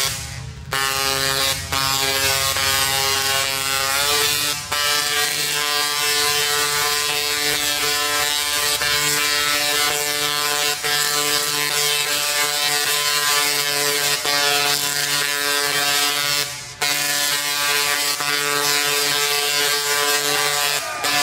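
A 3-million-volt Tesla coil firing long arcs into the air: a loud, steady, pitched buzzing crackle. It cuts out briefly a few times, about half a second in, near 2 and 5 seconds, and near 17 seconds. Its pitch steps up slightly about 4 seconds in.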